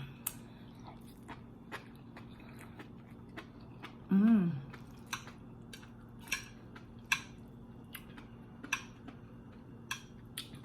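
Close-miked chewing of food, with many short wet mouth clicks and smacks. About four seconds in comes one brief hummed voice sound.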